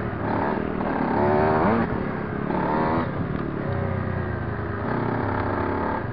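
Dirt bike engine heard from on board, revving as it rides, with the pitch climbing about a second in and again shortly before three seconds, then settling to a steadier drone.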